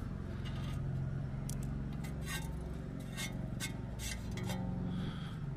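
A few light, separate clicks and clinks of small parts being handled, over a steady low hum.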